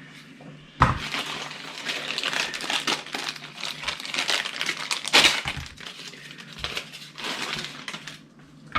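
Crinkling, crackling handling noise with many small clicks and clinks. A sharp knock comes about a second in, and the crackling is loudest about halfway through.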